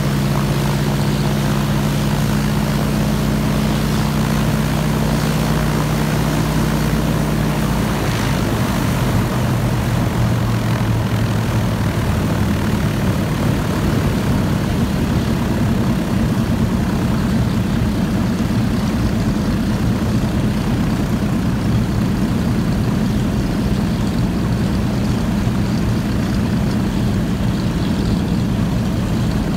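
Douglas C-47's Pratt & Whitney R-1830 Twin Wasp 14-cylinder radial engine running on the ground with its propeller turning, during a post-maintenance run-up. The steady engine note changes about eight seconds in as the power setting shifts, then runs on at the new setting.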